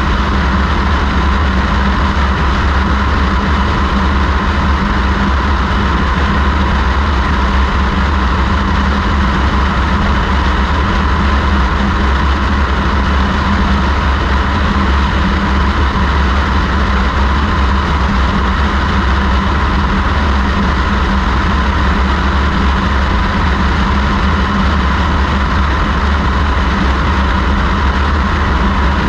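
Single-engine high-wing light airplane in cruise flight: a steady engine and propeller drone that never changes, with a constant rush of airflow, heard from a camera mounted outside the fuselage.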